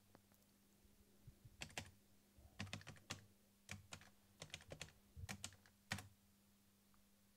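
Keystrokes on an Amstrad NC100 notepad computer's keyboard: a few scattered key presses, then quick runs of typing that stop about six seconds in.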